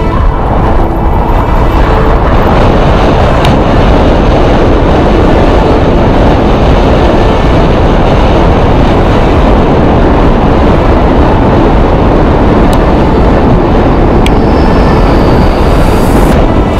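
Loud, steady rush of wind on an action camera's microphone, mixed with the rumble of a mountain bike's tyres on a dry dirt trail during a fast descent, with a few sharp clicks from the bike or from stones.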